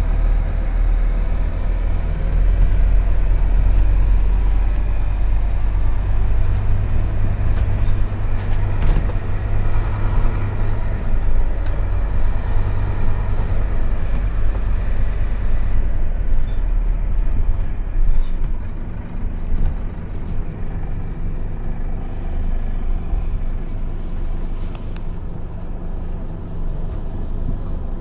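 Scania OmniLink single-deck bus driving, heard from inside the passenger saloon: a steady low drone of diesel engine and road noise. It drops in level about two-thirds of the way in. A few light clicks and rattles come through, mostly around a third of the way in.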